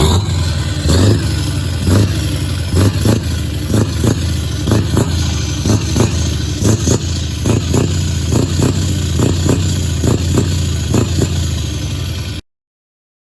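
Scania V8 diesel truck engine running loud and low, with a string of short sharp pulses about once or twice a second. It cuts off suddenly near the end.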